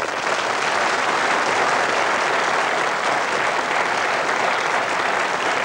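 Studio audience applauding steadily, a dense, even patter of many hands clapping.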